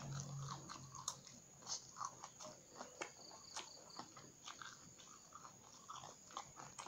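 Close-up mouth sounds of someone chewing raw green eggplant: irregular crunches and moist clicks, a few each second.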